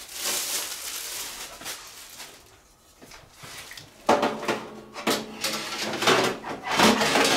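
Rustling of packaging, then a quiet moment and a run of short clattering knocks from about four seconds in, as the air fryer's trays and accessories are handled.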